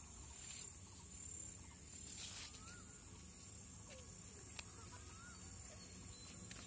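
Faint garden ambience: a few short, wavy bird chirps scattered over a steady high insect buzz and a low rumble, with a few soft clicks.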